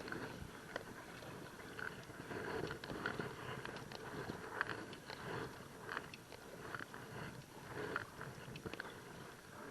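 Kayak paddle strokes dipping and splashing in the water beside an inflatable kayak, coming in swells about every one to two seconds over a steady hiss.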